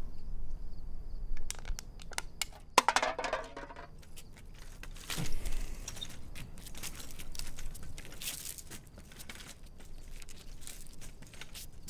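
Irregular clicks, knocks and scrapes of a folding aluminium walker being moved along pavement, over a low steady hum.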